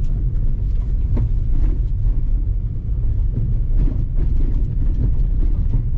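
Steady low rumble of wind buffeting the microphone on a moving motorcycle, with the bike running underneath.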